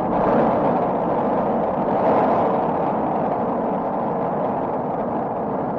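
Rolling thunder: a long rumble that swells about two seconds in and then slowly eases off.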